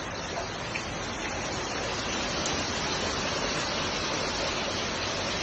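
Steady rush of water gushing or pouring.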